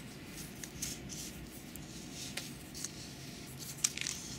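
Thread seal tape being pulled off its spool and wound around the threads of a metal pipe: soft scratchy rustling with light clicks, and one sharper click near the end.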